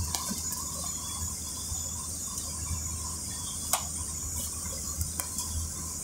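City bus in motion, heard from inside the cabin: a steady low rumble and hiss of engine and road noise, with a single sharp click a little past the middle.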